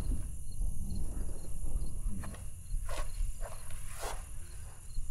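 Insects chirping steadily in the background, with a low rumble underneath and two short knocks about three and four seconds in.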